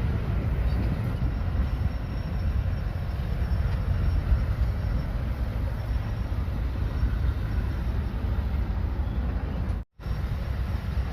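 Bulldozer's diesel engine running with a steady deep rumble. The sound cuts out for a split second near the end.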